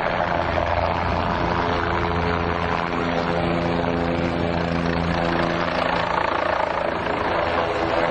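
Aircraft engine running loudly and steadily, a dense rushing noise with a held engine hum under it.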